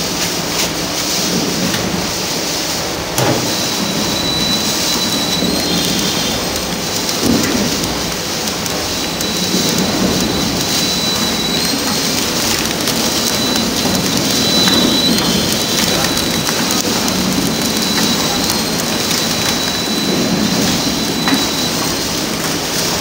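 Flow-wrap packing machine running, its motors and conveyor giving a steady mechanical noise with a faint high whine that comes in a few seconds in.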